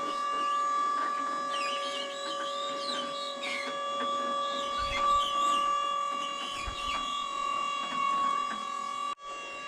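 JLG lift's hydraulic pump motor whining steadily as the platform is raised, with a brief dropout near the end.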